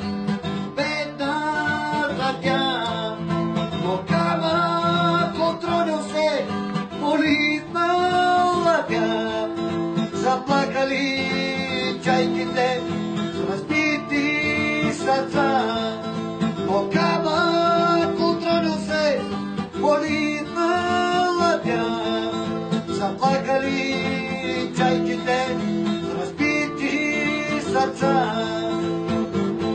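A man singing while strumming an acoustic guitar, the voice coming and going in phrases over the steady guitar.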